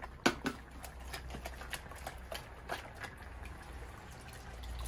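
Tomato juice poured from a carton into a cast-iron pan of simmering stew: liquid splashing, with the stew bubbling in irregular pops, the sharpest about a third of a second in, over a low steady rumble.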